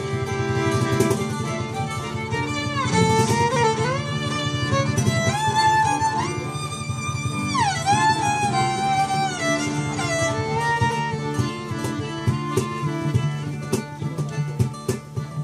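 Acoustic folk band playing an instrumental passage: a fiddle carries the melody, sliding between some notes, over strummed acoustic guitars and an accordion.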